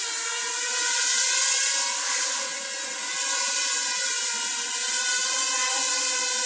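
SkyRover Nano micro quadcopter's electric motors and propellers whining steadily in flight, a dense, high-pitched whine that holds a fairly even pitch.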